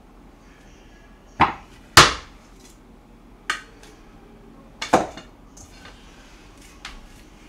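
A handful of sharp knocks of hard objects striking, irregularly spaced, the loudest about two seconds in and a double knock about five seconds in.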